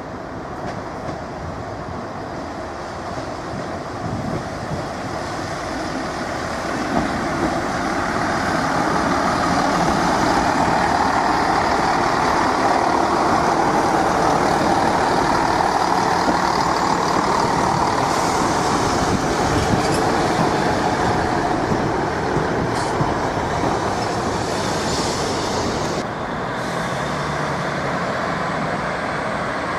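A train running through a station: its noise builds over the first several seconds, holds steady, then drops suddenly near the end.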